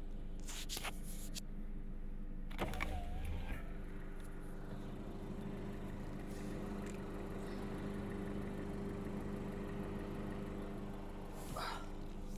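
Car engine running at a steady speed, with rain hissing around it. A sharp knock comes about two and a half seconds in, and a short hiss comes near the end.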